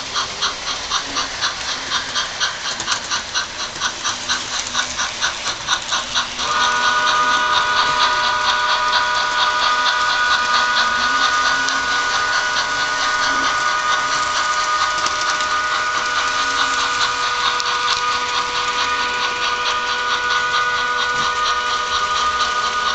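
HO-scale 2-6-0 steam locomotive's DCC sound decoder playing rapid, even steam chuffs through a small speaker. About six seconds in, a steady multi-note whistle tone starts suddenly and holds while the chuffing carries on under it.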